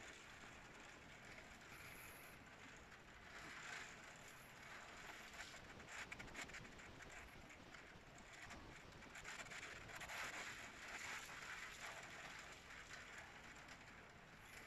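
Heavy rain and wind of a thunderstorm heard faintly through window glass: a steady hiss that swells and thickens into denser pattering twice.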